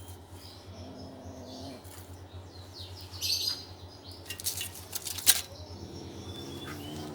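Scuffling and rustling as a kitten pounces on and bats at a live mouse, with sharp taps and scrapes, the loudest about two-thirds of the way through.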